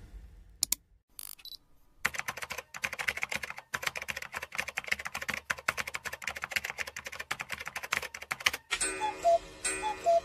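Rapid typing clicks, like fast keystrokes on a keyboard or typewriter, running for about six and a half seconds after a few scattered clicks. Near the end it switches to an even ticking with a short repeating tone, like a clock.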